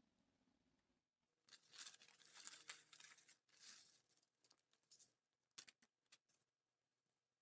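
Faint crinkling and tearing of light material being handled for about two and a half seconds, followed by a few short light clicks.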